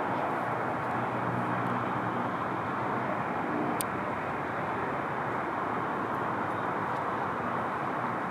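Steady city traffic noise, an even hum of passing vehicles, with one brief click about four seconds in.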